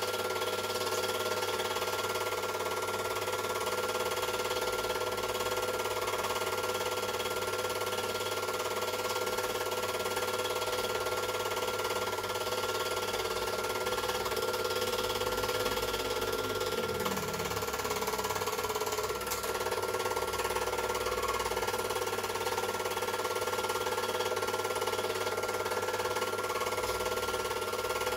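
Super 8 film projector running: a steady motor and fan hum with several held tones, unchanging in level.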